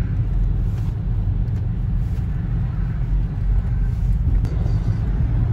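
Steady low rumble of a road vehicle, even throughout with no distinct knocks or horn.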